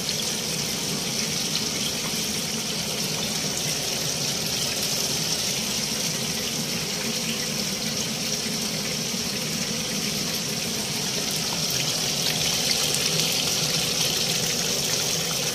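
Chicken pieces in a gram-flour batter deep-frying in a pan of oil, a steady sizzling and bubbling that grows slightly louder near the end. This is the second fry on a low flame, so the pieces cook through to the inside.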